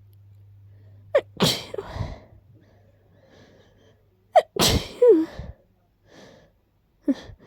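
A person with a stuffy head cold sneezing: two sharp sneezes about three seconds apart, each preceded by a quick catching breath, with a third starting near the end.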